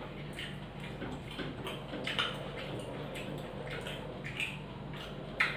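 Eating by hand: soft, scattered clicks and smacks of fingers working rice on plates and of chewing, over a steady low hum, with a sharper click near the end.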